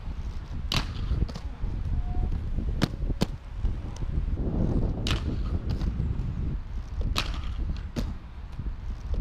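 Inline skates on a concrete skatepark floor: scattered sharp clacks, about seven in all, and a rush of wheels rolling close past about halfway through, over a steady low rumble.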